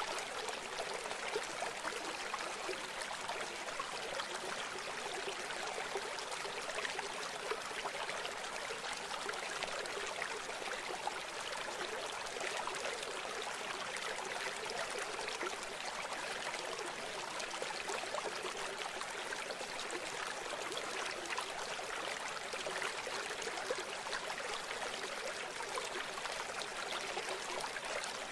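Steady sound of running water, like a flowing stream, with fine crackles in it.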